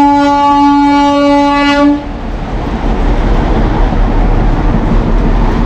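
Toy train horn blowing one long steady blast that stops about two seconds in, followed by the train's steady running rumble.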